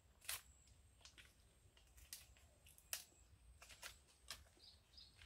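A machete chops into a fibrous nipa palm flower stalk, followed by a few faint sharp snaps and cracks as the stalk is broken apart by hand.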